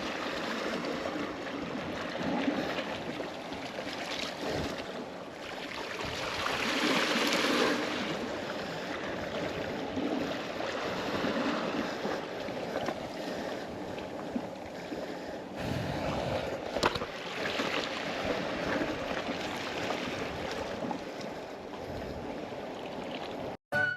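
Sea waves washing and splashing, with wind noise, swelling and easing every several seconds; a single sharp click about seventeen seconds in.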